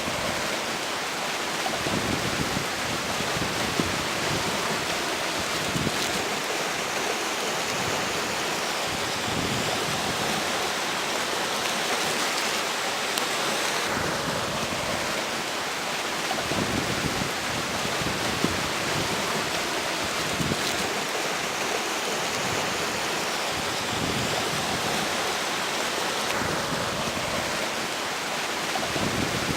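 Bah Bolon river flowing steadily, with strong wind gusting over it; the gusts buffet the microphone in low rumbles and swell up a couple of times.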